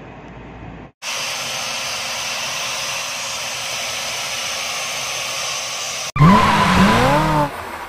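An angle grinder fitted with a wire cup brush scouring a natural-stone floor to strip old paint stains: a steady, high hiss of steel bristles on stone. About six seconds in it cuts off abruptly, and a louder tyre-squeal sound effect, like a car drifting, takes over with gliding, bending pitches. It drops away about a second and a half later.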